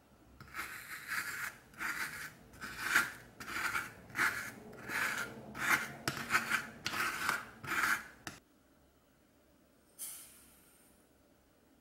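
Metal ice cream scoop scraping through frozen homemade Oreo ice cream in a glass container, about a dozen strokes in eight seconds. Near the end, a short hiss of granulated sugar pouring into a stainless steel bowl.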